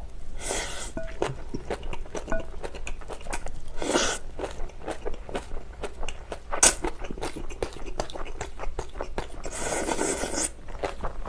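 Close-up eating of napa cabbage kimchi with rice: crunchy bites and wet chewing, with many small crackles and a few louder bites, the loudest near the end.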